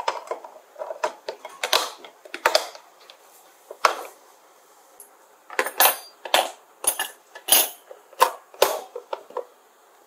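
A run of irregular sharp clinks and clatters of hard objects knocking together. A few come in the first four seconds, then a quieter gap, then a thick cluster of several a second near the end.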